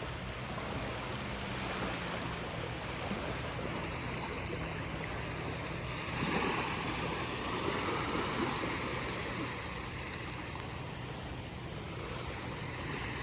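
Ocean surf on a beach: a steady wash of waves, with a louder wave breaking about six seconds in and fading over the next few seconds.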